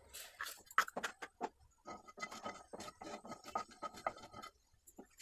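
Wooden spatula stirring nigella seeds in oil in a nonstick frying pan: irregular scraping and small crackling clicks that stop about four and a half seconds in.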